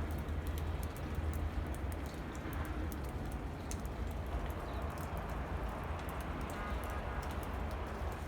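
Snowstorm ambience: a steady hiss of wet snow falling, with wind rumbling on the microphone and many faint scattered ticks throughout.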